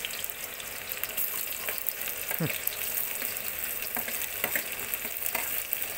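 Hot oil sizzling and frying in an iron kadai as sliced onions are pushed in from a steel plate with a ladle. A steady hiss with a few faint clicks.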